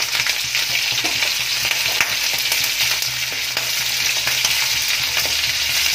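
Hot oil in a kadai sizzling steadily under pieces of tomato and brinjal, an even frying hiss with a few faint crackles.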